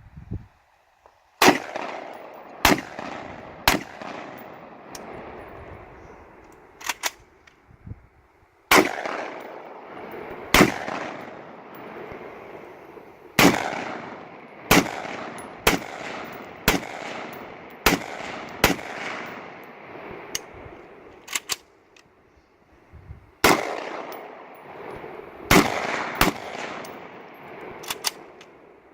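Gunshots from a Steyr AUG rifle and a pistol: about twenty single shots, mostly a second or two apart with a few short pauses between strings, each trailing off in a long echo.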